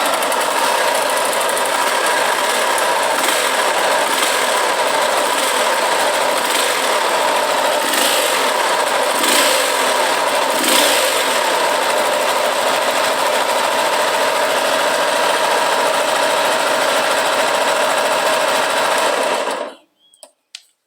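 A 2002–2004 KS-model motorcycle engine idling steadily with a hissing whine ("tipo um chiado") that is suspected to come from worn bearings in the gearbox or crankshaft. There are a few brief louder moments in the first half, and the engine cuts off near the end.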